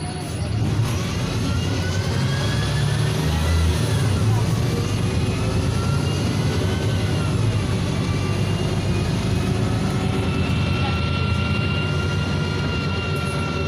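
Inside a NefAZ 5299 city bus: its Cummins ISBe diesel engine and Voith automatic gearbox running under way, with a whine that rises in pitch, falls back twice, then holds steady.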